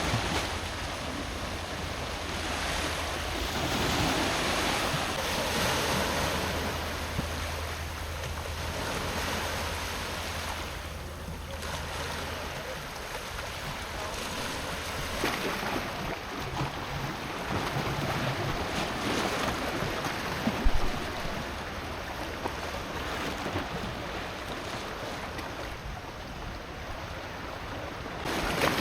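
Choppy sea waves washing in surges against a jetty, with wind buffeting the microphone. A low steady hum runs under it for about the first twelve seconds.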